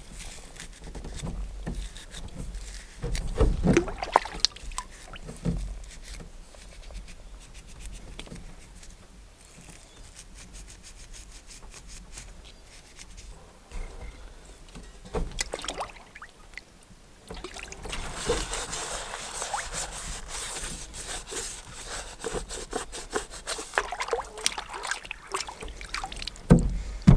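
Camp dishes washed by hand in lake water from a canoe: water sloshing and trickling as a metal bowl is scrubbed with a wad of plant roots, with a couple of knocks about four and six seconds in. The scrubbing and splashing grow steadier and busier from about two-thirds of the way through.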